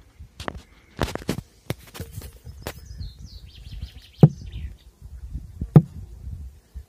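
Scattered clicks and knocks of handling against a swarm trap box, with two sharp, loud thumps a second and a half apart about four and six seconds in. Faint bird chirps in the background.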